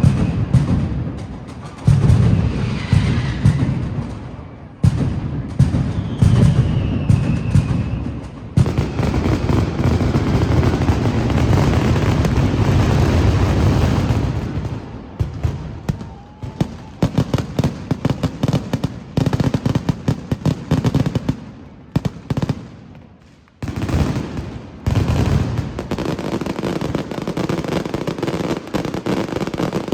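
Daytime fireworks show built for noise: a dense, rapid string of firecracker bangs and heavy booms, swelling to a nearly continuous barrage in the middle, thinning to scattered cracks, then building again near the end. A few short falling whistles sound among the bangs in the first seconds.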